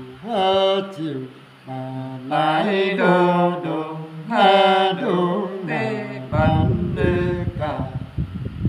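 Unaccompanied male voices singing a slow, chant-like folk song, with long held notes that slide between pitches. A low rumbling noise takes over about six seconds in.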